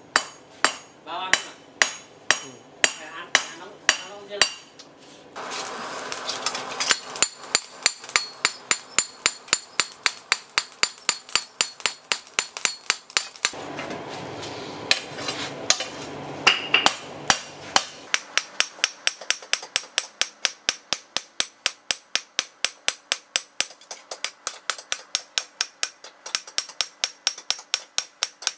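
Hand hammer striking a red-hot sword blade on an anvil in a steady rhythm, about three blows a second, each blow with a bright metallic ring. A steady rushing noise runs under the blows from about five to fourteen seconds in.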